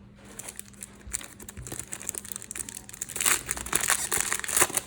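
Plastic foil wrapper of a trading-card pack crinkling as it is handled and opened, a dense crackle that builds and is loudest from about three seconds in to near the end.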